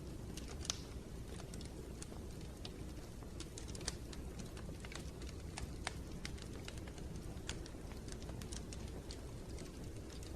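Wood fire crackling in a fireplace: irregular sharp pops and snaps over a low, steady rumble of the flames, with the strongest pops about a second in and near four seconds.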